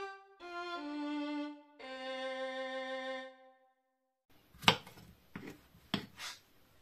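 Violin music playing a few slow held notes, stopping about three and a half seconds in. After a brief pause come about four sharp knocks of a kitchen knife chopping apple on a wooden cutting board.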